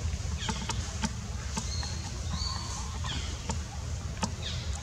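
Outdoor ambience: a steady low rumble with a handful of short, high, falling chirps and sharp clicks scattered through, and a brief high whistle-like tone about halfway.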